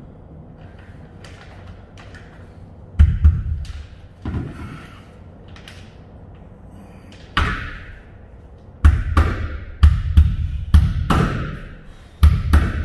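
Claw hammer striking overhead on the pins that hold a reefer trailer's air chute to the ceiling, each blow echoing inside the empty metal trailer box. Two blows come about three seconds in and single ones near four and seven seconds, then a steady run of about two blows a second from about nine seconds on.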